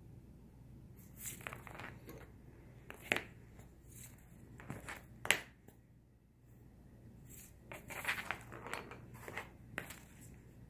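A wooden pencil scraping, rolling and tapping on paper over a tabletop as a cat bats it with its paws, with light rustling of the paper. Two sharper clicks come about three and five seconds in, the second the loudest, and a run of scrapes follows near the end.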